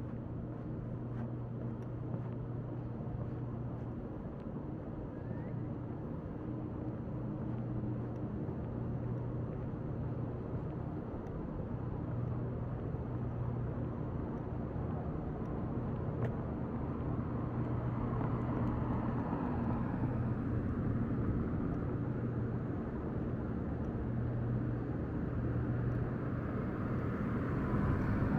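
Steady low mechanical hum under outdoor background noise, growing slowly louder over the stretch.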